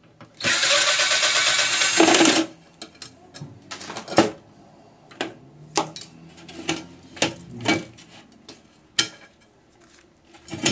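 A power driver runs for about two seconds, unscrewing the iMac's aluminium stand bracket. It is followed by a string of sharp metal clanks and knocks as the bracket and parts are handled.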